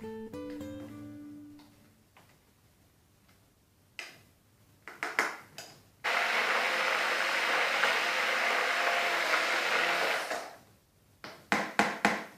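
A few plucked guitar notes fade out. Later a hand-held immersion blender runs steadily for about four seconds, puréeing pumpkin soup in a plastic tub. Near the end there is a quick run of knocks.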